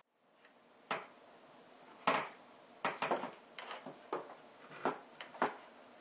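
Wooden frame pieces being handled and set in place: a string of about nine irregular sharp wooden knocks and clatters, the loudest about two seconds in.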